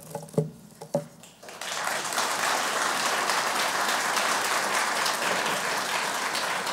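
Audience applauding. It starts after a few scattered knocks and claps in the first second and a half, then fills in to steady, sustained clapping.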